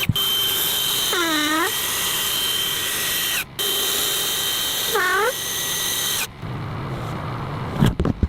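Power tool running with a steady high whine, its pitch dipping and recovering twice as it takes load. Near the end it gives way to quieter handling noise with a few knocks.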